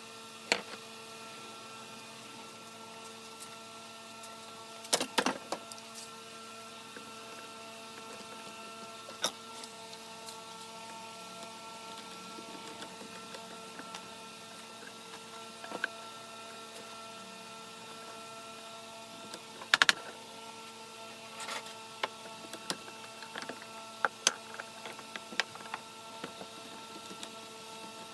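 Electric sander running with a steady whine, with scattered sharp knocks and clicks as wood is handled, loudest about five seconds in and again about twenty seconds in.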